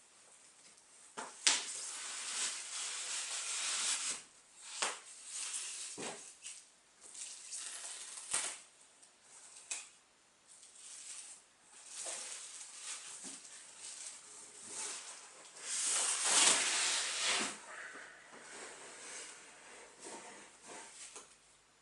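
Packaging rustling and being handled during a speaker unboxing, in irregular bursts with a few sharp knocks; the longest, loudest rustle comes about sixteen seconds in.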